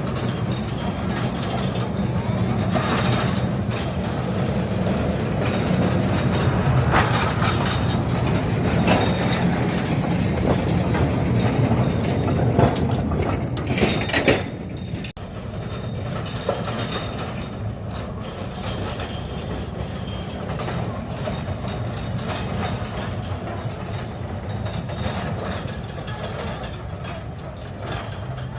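Narrow-gauge field railway battery-electric locomotive running on the track: a steady low motor and gear hum, with clicks and knocks from the wheels on the rails. About halfway through, the level drops suddenly and a quieter hum carries on.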